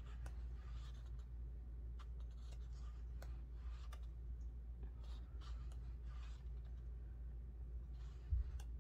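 Thick paper pages of a coloring book being turned by hand: brief rustles and soft clicks every second or so over a steady low hum. There is one dull thump near the end.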